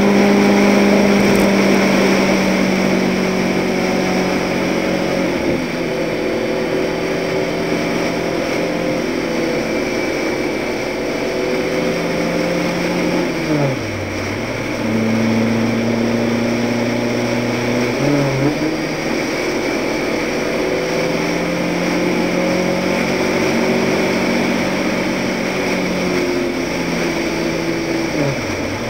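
Toyota truck engine running at speed, its pitch holding steady for long stretches, dropping sharply about 13 seconds in and again near the end, and stepping back up about 18 seconds in, over steady wind and tyre noise.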